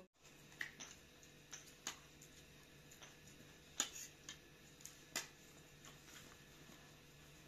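Quiet eating sounds at a meal: scattered light clicks and taps of spoons on plates and chewing, irregular and a second or so apart, the sharpest a little before the middle, over a faint steady hum.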